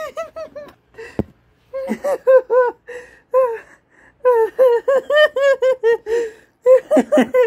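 A person laughing hard and high-pitched, in fast runs of breathy "ha" pulses with short breaks for breath. A single sharp knock about a second in.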